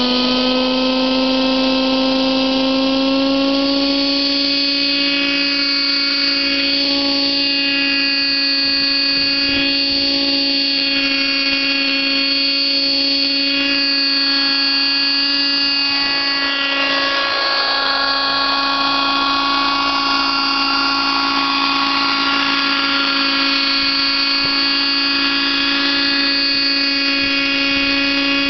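Kyosho Concept 30 RC helicopter's nitro engine and rotors spooling up, rising in pitch over the first second, then settling into a steady high whine as the helicopter flies and hovers.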